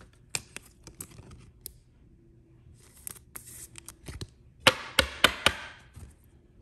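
Trading card being handled into a rigid clear plastic top loader: scattered light plastic clicks and taps, then a louder stretch of sliding, scraping plastic with several sharp clicks about two-thirds of the way through.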